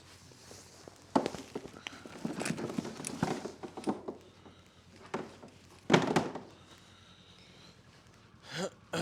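Footsteps with handling noise and several sharp knocks and thuds, the loudest about a second in and about six seconds in.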